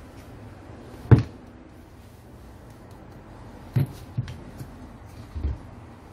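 Angle grinders and loose parts knocked down and shifted on a workbench: one sharp knock about a second in, the loudest, then three duller knocks in the second half.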